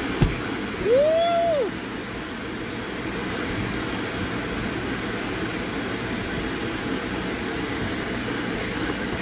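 Electric blower fan keeping an inflatable bounce house inflated, running with a steady rushing hum. About a second in, a child's voice gives one short call that rises and falls in pitch.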